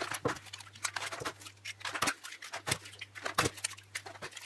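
Eggs being cracked one after another into a stainless steel mixing bowl: a quick run of sharp taps and cracks of shell, several eggs in succession.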